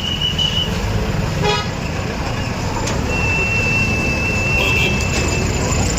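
Road traffic with a short vehicle horn beep about a second and a half in, and a long, high, steady whistle from about halfway through.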